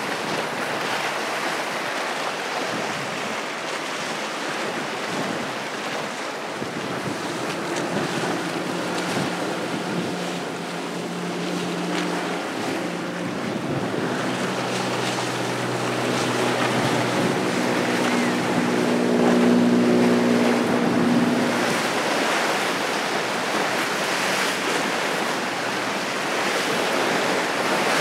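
Wind buffeting the microphone over waves and surf, with the engines of center console boats running past. A steady engine note rises out of the wind about a third of the way in, is loudest about two-thirds through, then fades back into the wind and water.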